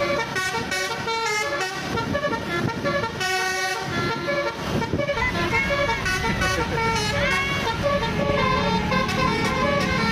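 Basuri multi-tone musical horn on a bus playing a fast melody of short notes that step up and down in pitch, over the noise of the bus.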